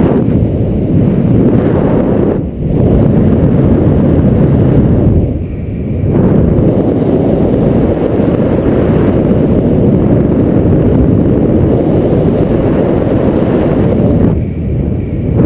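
Rushing wind buffeting the camera's microphone during a paraglider flight, a loud, steady low rumble. It eases briefly about two and a half seconds in, again around five and a half seconds, and near the end.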